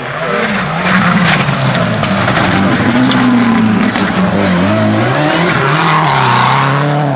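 Rally car engine revving hard on loose gravel, in the second half a Subaru Impreza's. Its pitch climbs, drops sharply about four and a half seconds in with a lift or gear change, then climbs again. Tyres scrabble and slide on the dirt under it.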